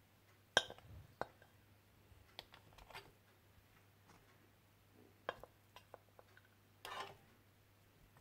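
A serving utensil clinking and scraping against a cooking pot as mutton pieces are picked out of the rice: a handful of scattered light clinks, the sharpest just after the start, and a brief scrape about seven seconds in.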